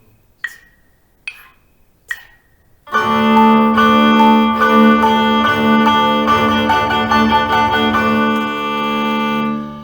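Four evenly spaced count-in clicks. About three seconds in, a string exercise in cut time starts, with plucked and bowed strings holding steady notes, and fades out near the end.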